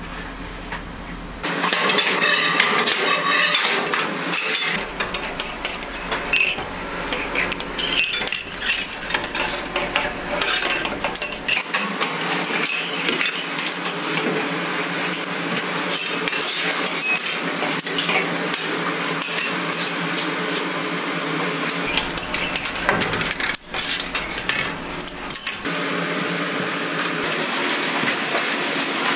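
Metal scrapers clinking, knocking and scraping against a stainless steel worktable as hot candy is spread and folded, in many sharp irregular clicks over a steady hum.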